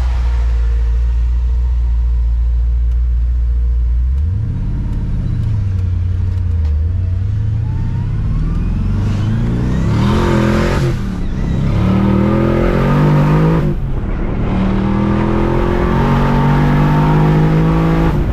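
2005 Pontiac GTO's V8 cruising with a steady low drone, then, about four seconds in, revving up and accelerating hard through the gears. The pitch climbs in repeated pulls, with brief breaks as it shifts. The car still pulls strongly on its new fuel pump.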